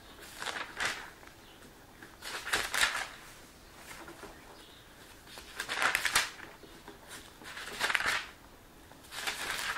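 Bible pages being turned: short, irregular bursts of paper rustling every second or two while a passage is looked up.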